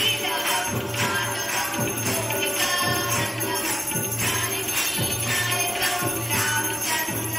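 Hindu devotional aarti music for Lord Ganesh: group singing over a steady beat of jingling bells and tambourine.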